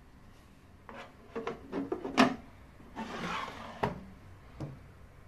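Several knocks and clatters as a ring tray is set into the Artium tester's sliding drawer, then a rubbing scrape as the drawer is pushed shut, ending in a knock.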